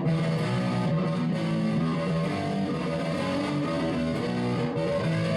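Intro music led by electric guitar, strummed, at a steady level.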